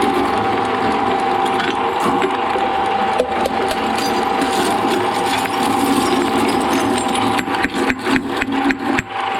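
Shredder machine running under load, a steady mechanical drone with a constant whine. A quick run of sharp cracks and snaps comes in the last two seconds as material breaks in the cutters.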